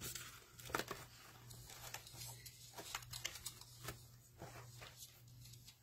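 Faint rustling and handling of paper, with a few light clicks and taps, the sharpest about a second in, over a low steady hum.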